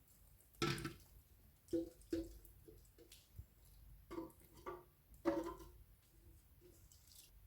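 Water dripping and splashing from the watering of house plants: about six short plops, each with a brief pitched ring.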